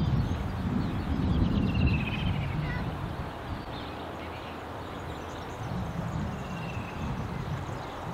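Wind buffeting the microphone in gusts, loudest in the first couple of seconds, with a few birds chirping and trilling faintly in the background.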